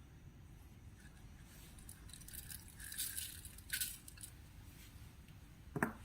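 Slime being handled: faint crackly, sticky sounds in a few short clusters around the middle, and one short, sharper sound near the end.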